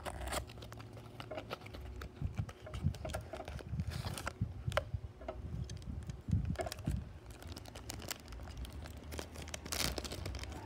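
A toy car's cardboard box and clear plastic wrapping being handled and opened: crinkling, rustling and scattered small clicks, with some low bumps.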